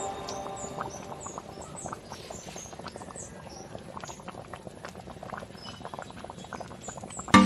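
Saba bananas and macapuno boiling in liquid in a pan, with a rapid, irregular popping of bursting bubbles.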